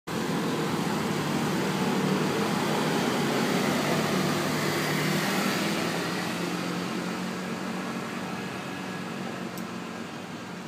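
Street traffic dominated by many motor scooter engines running close by, a dense steady hum with a low drone, easing off after about six seconds as the scooters ride away.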